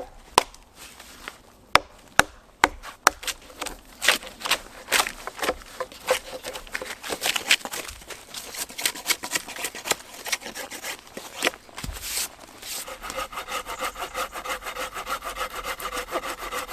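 A knife scraping and shaving bark off a fresh wooden pole, with irregular sharp cracks and scrapes. About three-quarters of the way through it gives way to quick, even back-and-forth strokes with a ringing edge, like a small saw cutting through the pole.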